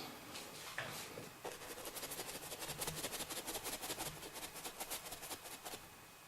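Paintbrush dabbing and scrubbing paint onto a board in quick, even strokes, several a second, to build up rock texture; the strokes stop shortly before the end.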